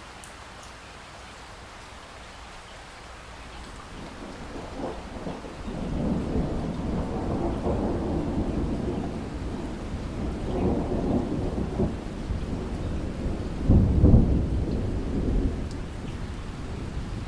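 Steady rain with a long rolling rumble of thunder that builds from about four seconds in, swells in waves, peaks about two-thirds of the way through and dies down near the end.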